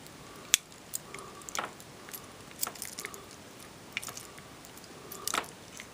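Irregular small metal clicks and scrapes of a warded lock pick being worked inside a warded Master padlock, the sharpest click about half a second in; this pick fails to open the lock.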